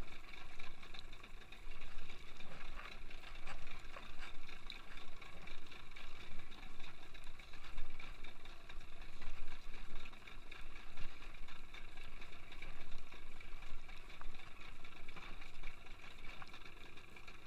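A boat engine running steadily, its even hum holding pitch, with uneven wind or water noise around it.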